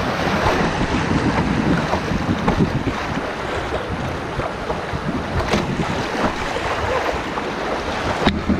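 River water rushing and splashing around a kayak, with wind noise on the microphone.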